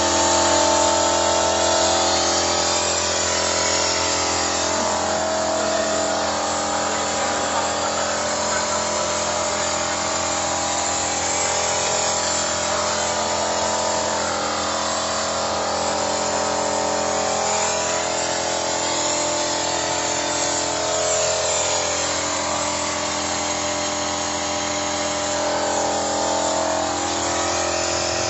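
Toyota Innova engine running steadily during a carbon-cleaner decarbonizing treatment, a dense droning hum with a whine on top, its pitch drifting slightly a couple of times.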